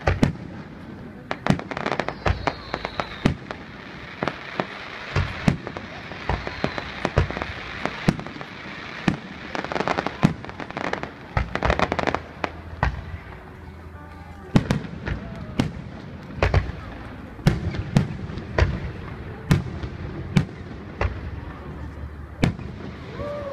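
Fireworks display: aerial shells bursting in an irregular series of sharp bangs, with a stretch of dense crackling near the middle.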